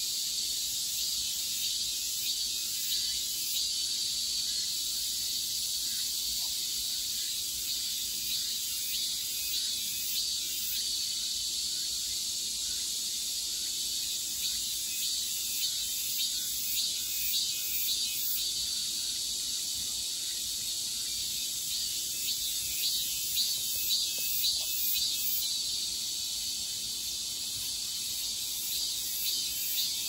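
A summer insect chorus: a steady high hiss with runs of rhythmic, pulsed high calls repeating about three times a second.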